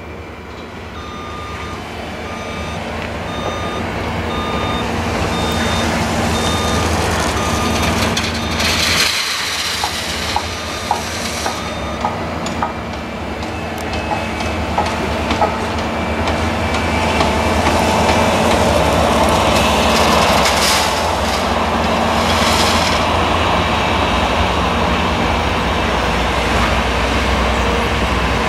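New Holland CX combine harvester with an eight-row Geringhoff maize picker header harvesting corn: engine and threshing machinery running steadily, growing louder over the first several seconds as it approaches. A regular electronic beeping like a reversing alarm sounds for the first several seconds, and a series of sharp knocks comes through the middle.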